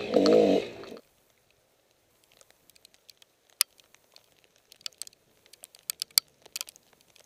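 Dirt bike engine running, cutting off abruptly about a second in. Then near quiet with scattered sharp clicks and light rustles from a gloved hand handling the helmet camera.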